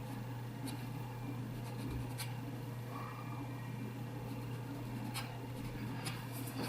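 Faint scratchy strokes of paint being worked on canvas, with a few light clicks, over a steady low hum.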